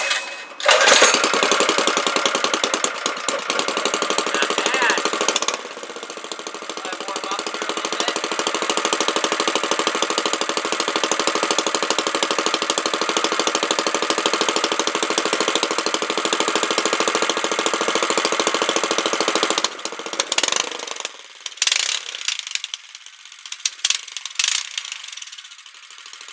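Degoverned Predator 212 single-cylinder four-stroke engine with a high-compression head and new 18 lb valve springs, test-fired: it catches about a second in and runs fast and loud with a rapid rattling beat. After about five seconds it settles to a slightly lower, steady run. About twenty seconds in it falters and cuts out, with a few short sputters after.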